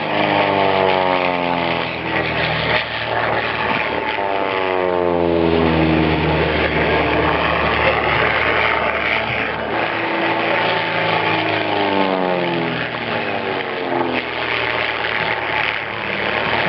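Propeller aircraft engine droning during a low display flight, its pitch sliding down each time the plane passes, about three times, over a steady noisy rush.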